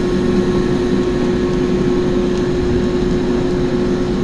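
Belt-driven HVAC blower with a large blower wheel, driven by a 5 hp three-phase 220 V motor, running at speed: a loud, steady rush of air with a constant hum tone.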